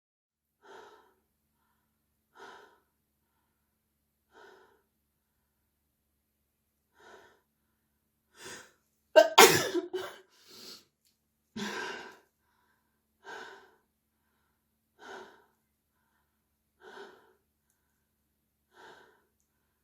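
A man breathing in short bursts about every two seconds, then one loud sneeze about halfway through, followed by a few smaller bursts. The sneeze is being deliberately induced.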